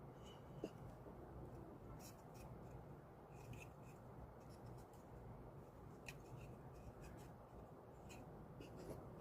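Near silence with faint, scattered small clicks and rubbing of hand work, over a low steady hum; one sharper click comes under a second in.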